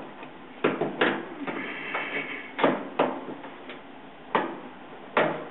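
A series of about six sharp clicks and scrapes as a tool pries a small plastic triangular retaining washer off the shaft of a dryer's drum support roller.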